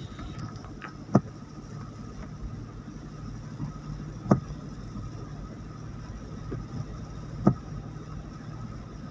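Steady drone of a car heard from inside the cabin, with tyres on a wet road, and three sharp knocks about three seconds apart from the windscreen wiper on its sweep.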